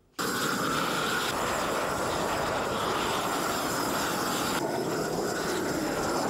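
Gas roofing torch running with a steady rushing noise, heating and melting the underside of a bitumen waterproofing membrane as the roll is unrolled. It starts suddenly just after the beginning.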